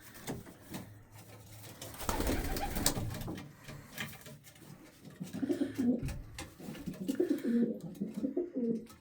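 Pigeons cooing in a loft, repeated low cooing phrases that grow more frequent in the second half. A brief rustle about two seconds in.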